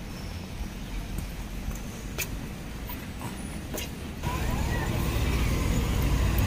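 Street traffic: a steady low rumble of motor vehicles with a couple of sharp clicks, growing suddenly louder about four seconds in and rising after that.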